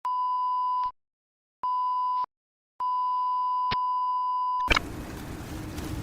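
Three electronic beeps at one steady pitch: two short ones, then a longer one. A sharp click follows, and then a steady background rumble like traffic.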